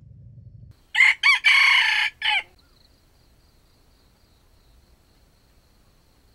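Red junglefowl rooster crowing once, about a second in: two short notes, a long held note and a short clipped final note, about a second and a half in all.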